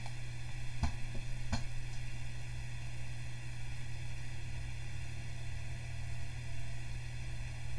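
Steady low electrical hum with a hiss underneath, and two mouse clicks about a second and a second and a half in.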